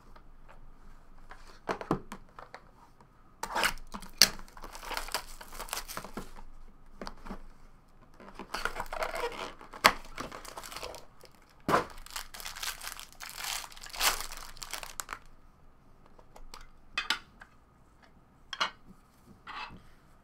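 A Bowman Chrome hobby box opened by hand, then its foil-wrapped card pack crinkling and tearing open in three long rustling stretches, with a few light clicks of cardboard and cards being handled near the end.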